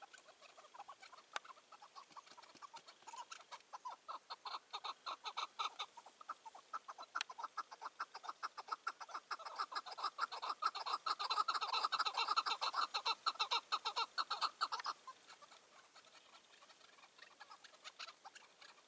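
Chukar partridges calling: a long, fast run of repeated clucking notes, several a second, building louder and then breaking off abruptly about fifteen seconds in, followed by a few faint scattered calls.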